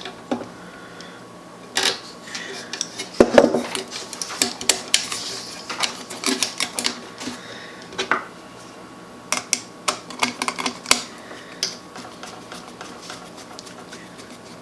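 Irregular metallic clicks, clinks and light scrapes of hand tools and wire being worked at a light fixture's terminal screws and metal electrical box, loudest about three seconds in and thinning out after about eleven seconds.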